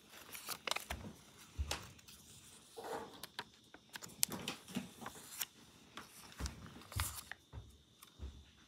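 Paper cutouts rustling and being shuffled by hand inside a clear plastic tub, with scattered light taps and clicks against the plastic.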